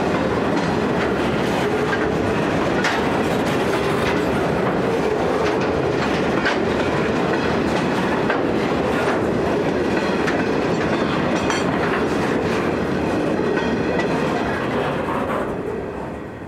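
Grain hopper wagons of a freight train rolling past, a steady rumble of steel wheels on rail with scattered clicks over the rail joints. The sound fades near the end as the last wagon goes by.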